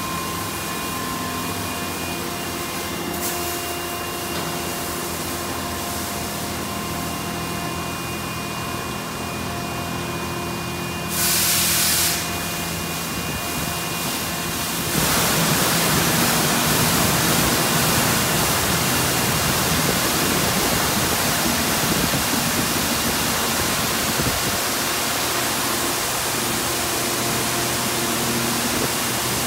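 D&S Quicksilver touch-free car wash machine spraying a car: a steady hiss of water jets over the hum of its pumps, with a short, sharper blast about a third of the way in and a louder, fuller rush from about halfway.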